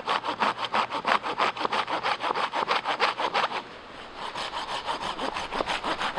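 Small folding Silky hand saw cutting through a dead but sound cherry log in quick, even back-and-forth strokes. The strokes ease off briefly a little past halfway, then pick up again.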